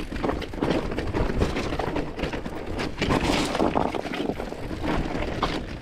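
Mountain bike rattling and clattering down a rough rock trail: tyres knocking over rocks and the bike's parts rattling, as a steady run of sharp knocks over rushing noise.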